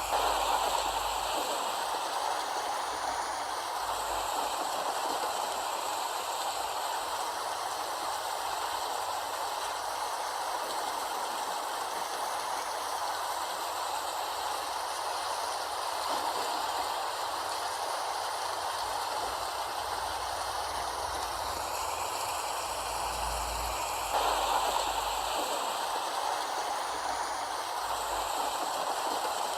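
Steady rain, an even hiss of falling water with no rhythm to it, swelling slightly at the start and again about 24 seconds in.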